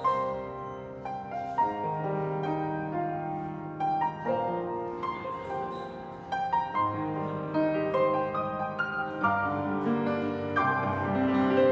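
Grand piano playing a melody over held chords, with a new note every half second or so.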